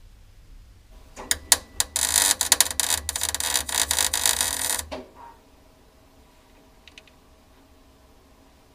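Arc welder plug-welding a steel fuel tank strap extension onto the strap. A few short stuttering bursts come about a second in, then a dense run of crackling lasts about three seconds and cuts off suddenly.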